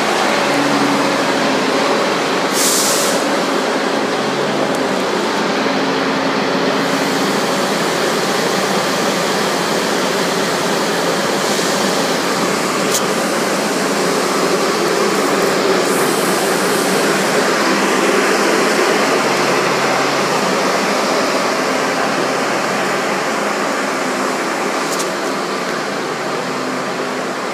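Steady, loud noise of a train at a station platform, with an engine hum in the first several seconds, a brief high hiss about three seconds in, and a few short squeaks or clicks later. The noise fades slightly near the end.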